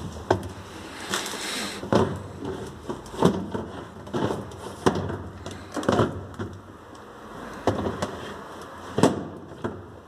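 Plastic drawer of a DEXP RF-MN552DSY refrigerator being slid in and out repeatedly, with knocks and scrapes about once a second. The drawer catches partway along its travel, which the owner puts down to a bit of leftover moulding flash on the plastic.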